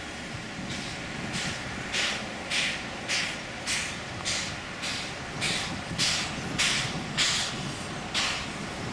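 The Sugar Cane Train's narrow-gauge steam locomotive chuffing as it works along the line. The exhaust beats come about two a second and stop shortly before the end.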